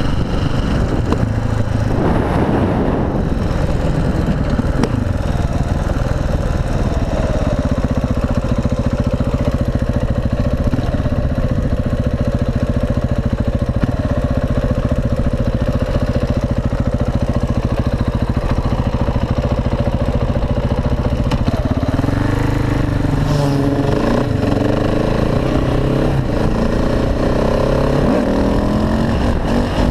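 KTM SMC R supermoto's single-cylinder engine running under way, holding a steady pitch through the middle and then rising and falling with the throttle over the last several seconds, over a steady rush of wind noise.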